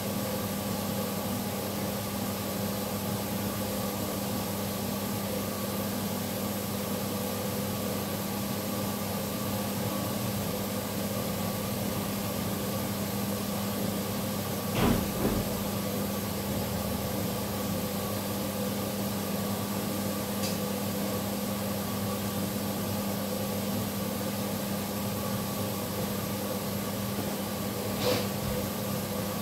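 Steady hum of a running motor or appliance, with a short knock about halfway through and another near the end.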